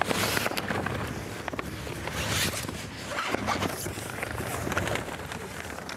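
A large sail's stiff sailcloth rustling and crinkling as it is gathered and folded by hand, with many short crackles.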